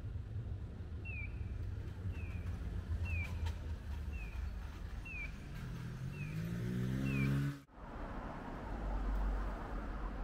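Road-traffic rumble with a pedestrian crossing's audible signal chirping about once a second, seven short falling chirps. Near the end a vehicle's motor rises in pitch as it pulls away, then the sound cuts off abruptly and gives way to the noise of passing traffic.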